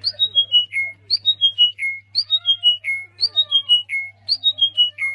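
Songbird singing one short phrase over and over, about once a second: a high note and then several notes stepping down in pitch, ending on a held lower note. A steady low electrical hum runs underneath.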